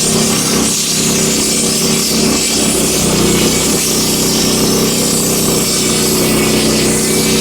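Wood-Mizer LX25 portable sawmill's engine running steadily, with a high hiss over the engine note.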